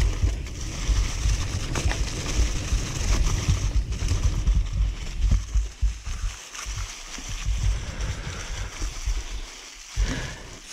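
Mountain bike tyres rolling fast over dry leaves and dirt, with a jittery low rumble of wind and trail vibration on the camera microphone. The noise eases in the second half as the bike slows.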